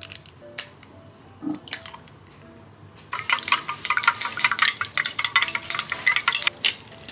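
Eggs being beaten in a small stainless steel bowl, the utensil clicking rapidly against the metal for about three and a half seconds, starting about three seconds in. Before that come a few sharp taps as an egg is cracked against the bowl.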